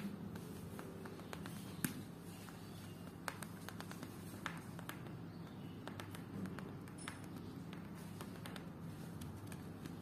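A hamster biting and gnawing at its cage makes scattered light clicks and taps, the sharpest about two seconds in, over a faint steady low hum.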